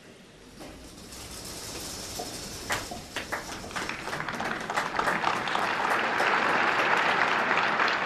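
Audience applauding: a few scattered claps at first, swelling into steady, dense applause that grows louder to the end.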